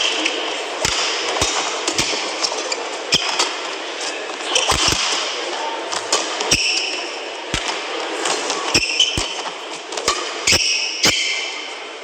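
Indoor badminton match: crowd noise in a large hall, with sharp racket-on-shuttlecock hits and short high squeaks of players' shoes on the court mat. The hits come about once a second in the second half as a rally is played.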